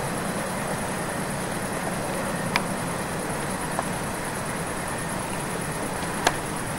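Steady background noise with three short clicks, the last one the loudest.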